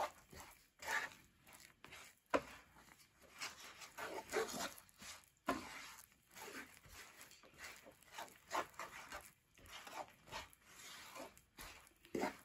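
Wooden spatula stirring and scraping thick, sticky peanut brittle mixture around a non-stick pan, in irregular strokes. The caramelised sugar and peanuts are nearly done.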